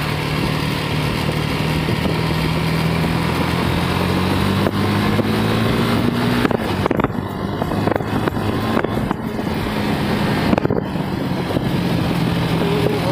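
KTM Duke 250 motorcycle's single-cylinder engine running under way, its pitch rising slowly over the first six seconds. A run of short knocks and clatters comes through the middle.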